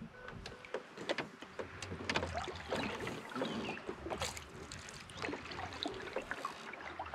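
Canoe paddling: paddle strokes swishing and dripping water, with scattered small clicks and knocks.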